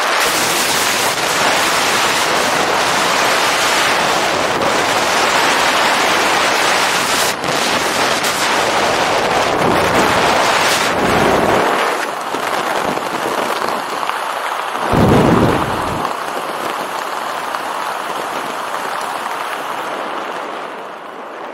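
Heavy freefall wind rushing over the body-mounted camera, easing off partway through as the parachute canopy opens. A short low rumble comes about fifteen seconds in, then softer wind under the open canopy fades toward the end.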